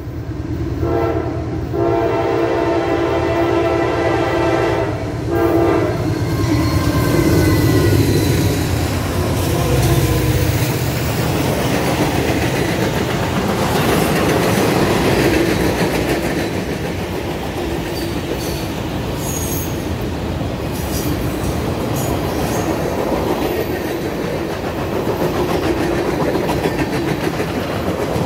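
Norfolk Southern freight train's diesel locomotive blowing its horn as it approaches, the horn breaking off about five seconds in. Then the locomotive and a long string of empty flatcars roll past on the rails.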